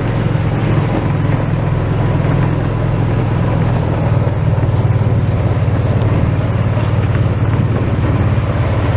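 Small utility vehicle's engine running steadily while driving, with a low, rapidly pulsing drone.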